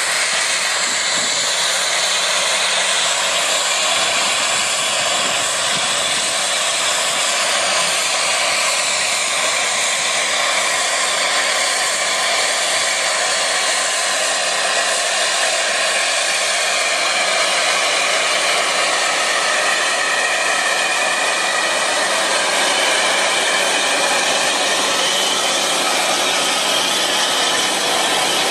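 Large tractor pulling a row-crop seed planter across a field: a steady, unchanging whooshing hiss of engine and machinery noise.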